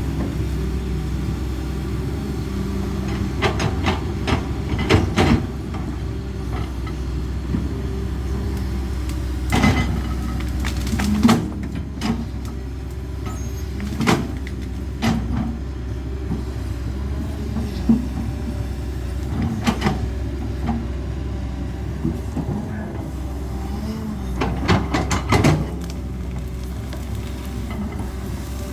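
CAT 320D hydraulic excavator's diesel engine running steadily, with sharp metallic knocks and clanks at irregular moments, in clusters about 4–5, 10–11, 14–15, 18–20 and 24–25 seconds in.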